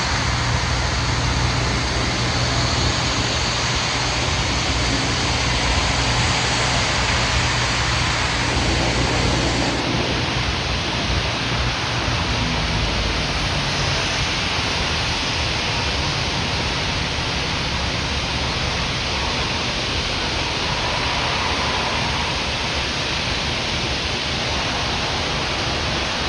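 Sandblasting close by: a loud, steady hiss of blasting air and grit, with a low steady drone underneath that weakens about halfway through.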